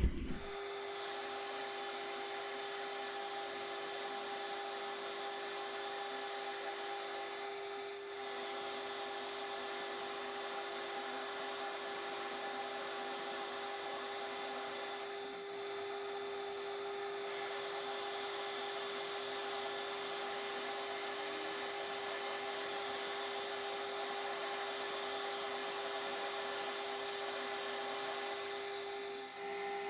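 Metal lathe running steadily with a constant hum while turning down the end of a small shaft held in a collet.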